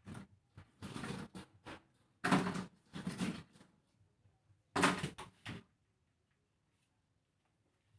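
A run of short scrapes and knocks from refrigerator parts being handled during defrosting and cleaning.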